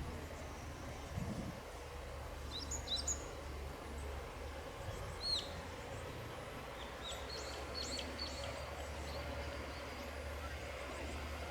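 Outdoor ambience: small birds chirping a few times over a steady low rumble.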